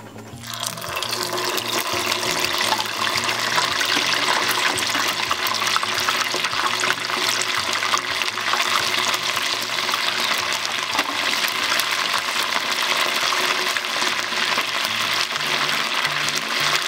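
Karaage chicken pieces deep-frying in a stainless pot of hot oil: a dense, loud sizzle and crackle that swells up about half a second in as the once-fried pieces go back into the oil for their second fry.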